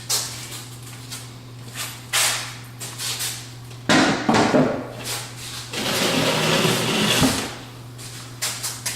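Knocks and rough scraping from a wooden vanity cabinet being handled, with a longer sustained scrape about six seconds in, over a steady low hum.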